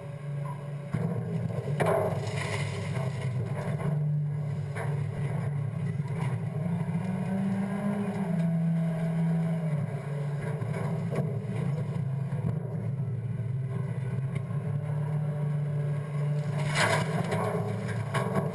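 A Scorpion automated side-loader refuse truck's engine and hydraulics run steadily through a packer cycle, the hum rising in pitch briefly in the middle. Near the end comes a loud rushing clatter as a cart of trash is dumped into the hopper.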